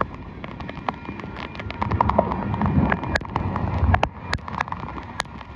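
Union Pacific freight train rolling past over a grade crossing: a low rumble of the cars with irregular sharp clacks as the wheels cross rail joints. The rumble swells about two seconds in.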